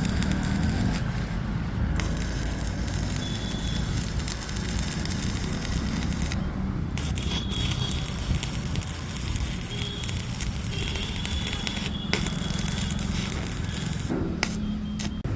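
Electric arc welding on iron: a steady crackling sizzle from the arc, broken off briefly a few times.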